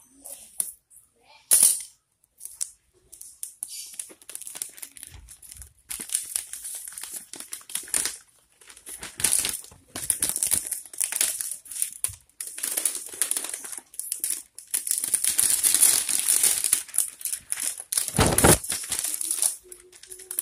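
Clear plastic wrapping sheet crinkling and rustling in repeated bursts as it is handled. A sharp knock comes about a second and a half in, and a dull bump near the end.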